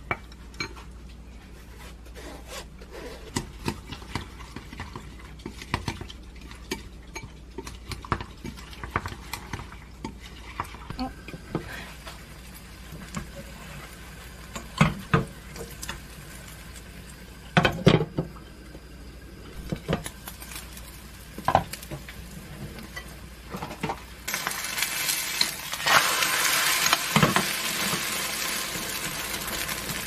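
Wooden chopsticks clicking and scraping against a glass mixing bowl as shredded cabbage is stirred into beaten egg, with a few louder knocks in the middle. About three-quarters of the way in, an egg-and-cabbage mixture starts sizzling loudly in a frying pan.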